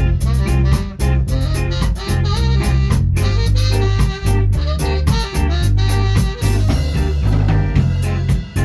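Ska band playing live: drum kit, bass and guitar with horns, a driving offbeat groove.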